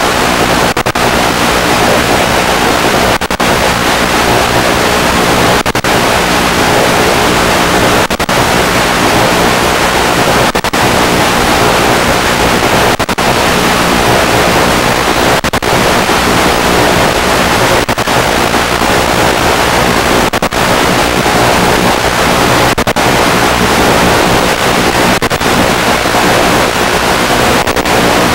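Loud steady hiss of radio static from an analog FPV video link's audio channel, broken by brief dropouts about every two and a half seconds.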